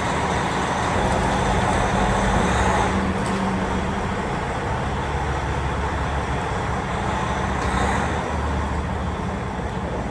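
Dump truck's diesel engine running as the truck is driven slowly out of the shop, a steady low drone that swells a little about two seconds in and again near the end.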